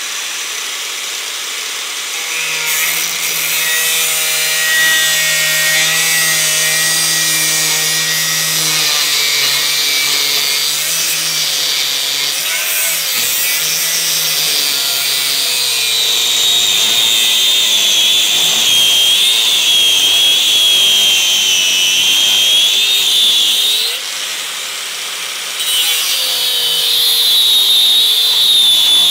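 Bosch 800-watt angle grinder with a 1 mm steel slitting disc cutting into the Barronium composite-armoured bar of a Litelok X1 Moto D-lock: a continuous loud grinding whose motor pitch drops as the disc bites, with a high screech coming in about halfway through. The cut eases off briefly about 24 seconds in, then carries on. The armour resists the cut and wears the slitting disc down fast.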